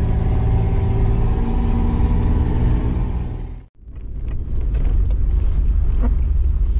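4x4 off-road vehicle's engine running steadily while driving, heard from inside the cab. A little over halfway through the sound cuts out for an instant, then returns as a rougher, noisier low rumble.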